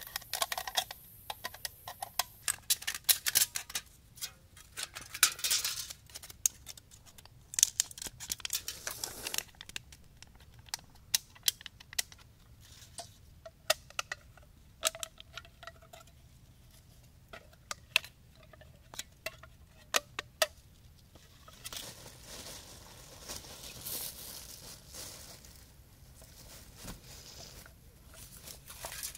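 Scissors cutting through a thin aluminium drink can: a run of sharp snips, clicks and metallic crinkles, at times several a second. After about twenty seconds the clicking gives way to a softer, steadier rustle.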